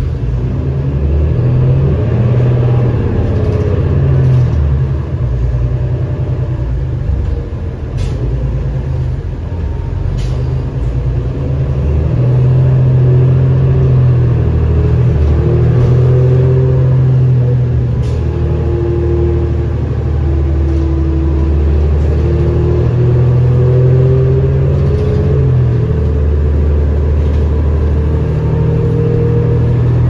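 A 2007 New Flyer D40LFR city bus heard from inside while under way: the low drone of its Cummins ISL diesel engine, with a whine from the drivetrain that falls and rises in pitch as the speed changes. The bus gets louder about twelve seconds in, as if pulling harder, and a few sharp clicks or rattles come through.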